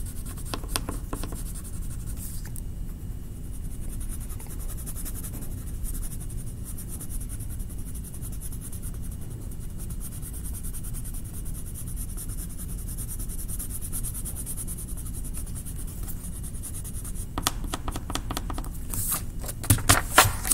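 Colouring strokes scratching on paper, a faint steady scratch over a low hum. Clusters of sharp clicks and rattles come in the first couple of seconds and again near the end, as colouring sticks are picked up and put down.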